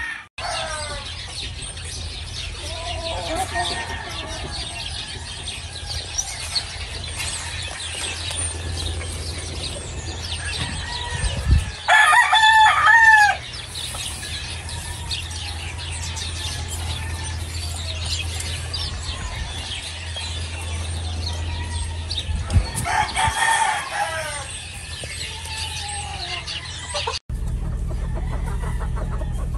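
Gamefowl roosters crowing among clucking and calling chickens. A loud crow comes near the middle and a second one later.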